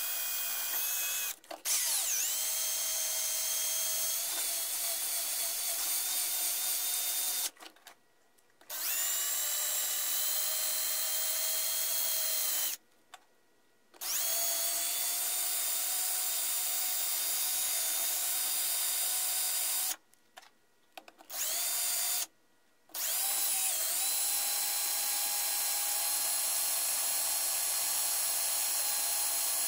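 Cordless drill spinning a brass screw bit against the muzzle of a rifle barrel, lapping the crown with lapping compound. The drill runs in six stretches of one to six seconds with short pauses between them, its pitch rising as it spins up at each start.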